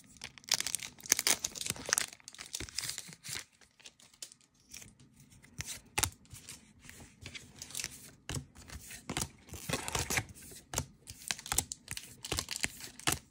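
A trading-card booster pack's foil wrapper torn open and crinkled, in two clusters of crackling, early on and again after about eight seconds, with light clicks and slides of cards being handled and flicked through in between.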